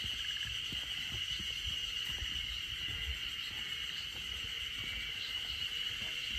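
Insects chirring: a steady, unbroken high-pitched drone.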